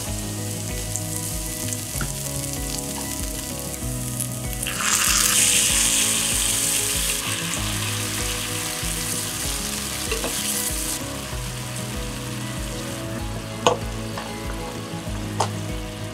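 Bitter melon slices sizzling in oil in a frying pan. About five seconds in, sake, soy sauce and mirin hit the hot pan and the sizzle jumps loud and hissy for several seconds, then settles back to a steady sizzle as the slices are stirred, with two short sharp taps near the end.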